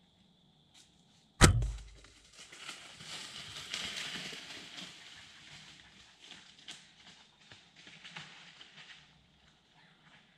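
A single sharp crack of a bow being shot about a second and a half in. Then a deer crashes off through dry leaves, the rustling fading over several seconds. Before the shot an insect trills steadily.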